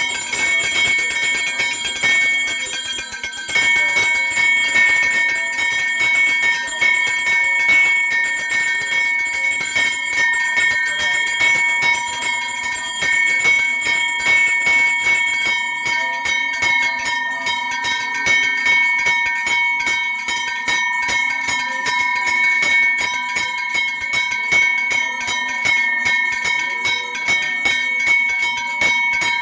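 Brass puja hand bell rung rapidly and without pause, its ringing tones held steady, as the lamp offering (aarti) is waved before the deity images.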